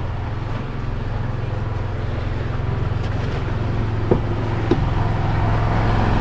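An engine running steadily with a low, even hum. Two light knocks come about four and five seconds in.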